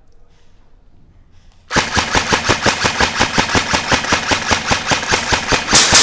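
Airsoft rifle firing a long full-auto burst, rapid evenly spaced shots of about eight a second, starting about two seconds in.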